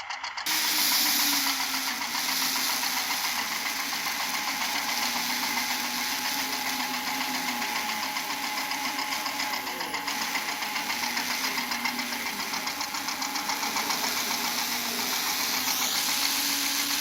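Small electric motor starts up and runs with a steady whirring buzz. Its pitch sags and recovers a few times.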